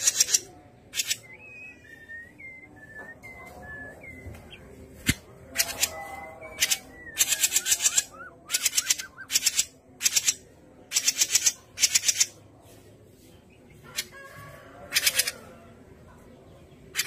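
Cucak jenggot mini songbird calling: about ten short bursts of harsh, rapid rattling chatter, with a run of short thin whistled notes about two to four seconds in.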